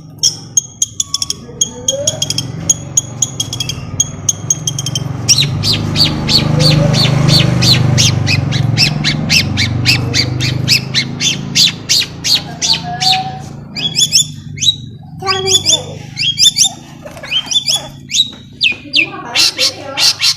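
Long-tailed shrike (cendet) singing hard: fast runs of harsh, scratchy repeated notes, several a second, broken by varied calls near the end, over a steady low hum.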